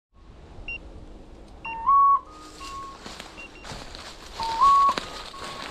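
Hunting dog's electronic beeper collar sounding twice, each a loud two-note tone stepping up in pitch, about two and about four and a half seconds in. Between and after the tones, footsteps crunch through dry leaves and brush.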